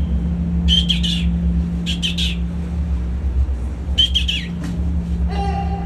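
Newly hatched king penguin chick peeping: three short bouts of high whistles that bend in pitch, over a steady low hum.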